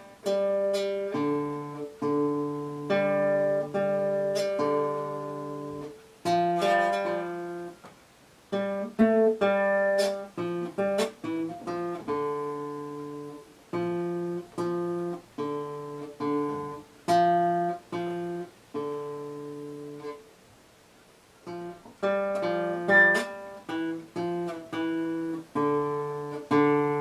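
Classical nylon-string guitar played fingerstyle: a slow solo piece of plucked chords and melody notes, with a run of quicker notes from about six to eleven seconds in. There is a brief pause about twenty seconds in, and then the playing resumes.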